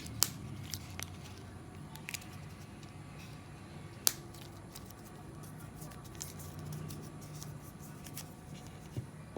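Light handling sounds: sharp clicks and taps, the loudest about a quarter second in and about four seconds in, over a low steady hum.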